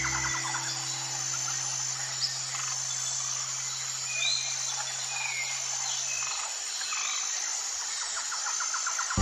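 A few short, faint bird chirps over a steady outdoor hiss, with a held low note of the background music fading out about six seconds in.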